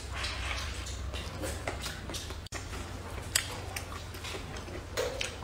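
A person chewing a big mouthful of egg fried rice with preserved vegetables close to the microphone, with irregular mouth clicks a few times a second.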